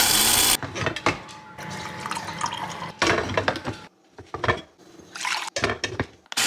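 Black+Decker grind-and-brew coffee maker brewing: water gurgling and dripping, with scattered clicks and knocks. A brief loud rush of noise comes at the very start, and a near-quiet gap about four seconds in.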